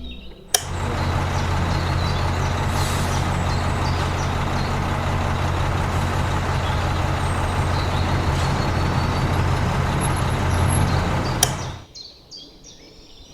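Steady machine running noise, a low hum with a hiss over it, switched on abruptly with a click about half a second in and cutting off near the end.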